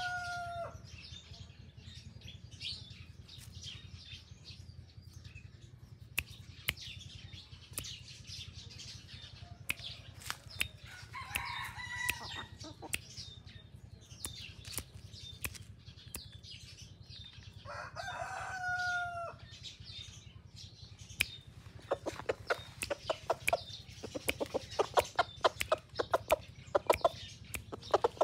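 Junglefowl-type decoy rooster crowing: the falling tail of a crow right at the start, a short call about 12 s in, and another crow around 18 s that ends on a falling note. From about 21 s on, a fast, quickening run of short sharp clicks as the bird pecks at the ground.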